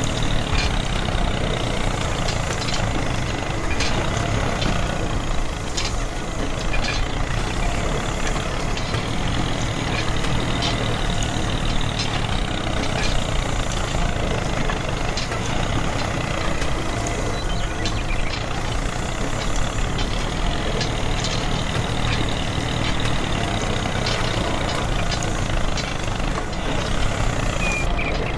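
Steady mechanical running of a miniature DIY tractor driving its rotating drill drum into sand, with faint ticks scattered throughout.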